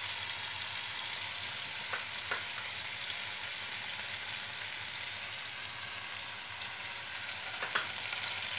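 Poppy seed paste and nigella seeds sizzling steadily in hot mustard oil in a nonstick kadai, with a few faint clicks.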